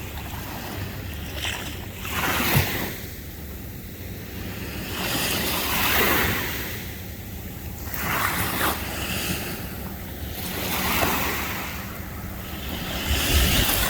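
Small waves breaking and washing up the sand, swelling and fading every two to three seconds, with wind rumbling on the microphone.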